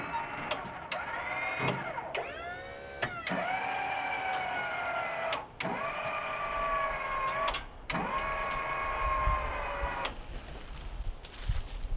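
Electric motor of a truck-mounted service crane whining in several runs as it hoists a heavy steel jobsite box. Each run starts with a click and a dip in pitch. The longest lasts about four seconds, and the motor stops about two seconds before the end.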